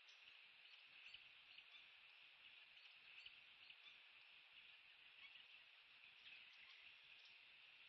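Near silence: faint, steady high-pitched outdoor hiss with a few tiny ticks, and no eagle calls.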